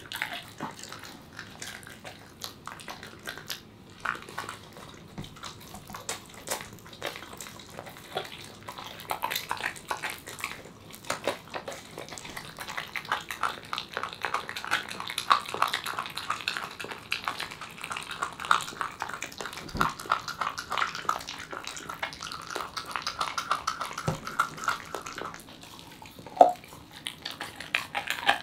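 Corgi chewing and licking a piece of raw poultry: wet smacking and squelching with many quick clicks of teeth on meat and bone, and one louder snap near the end.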